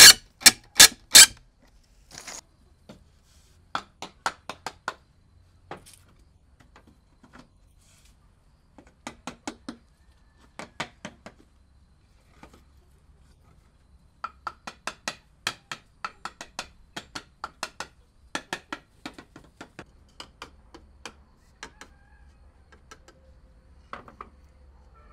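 Hammer blows on wood, coming in bursts of quick strikes about four a second with pauses between bursts; the loudest run is in the first second.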